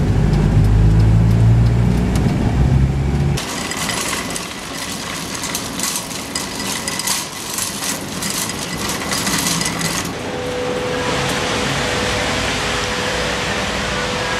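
Car engine and road noise heard inside the cabin, a low steady rumble, which cuts off abruptly about three seconds in to shop ambience full of small clicks and knocks. From about ten seconds in this gives way to an even hiss with a faint steady tone.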